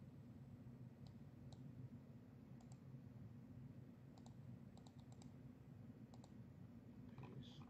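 Faint computer mouse clicks, single and in quick pairs, scattered over a low steady room hum.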